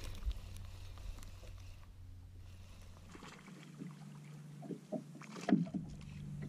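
Quiet on a bass boat on the water: a faint steady low hum that shifts to a slightly higher pitch about three seconds in, with a few light clicks and knocks a little after five seconds, the loudest one near the end.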